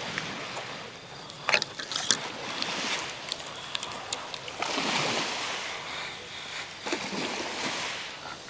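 Small sea waves washing in on the shore, the wash swelling up twice in the second half. A few sharp clicks and knocks come about one and a half to two seconds in.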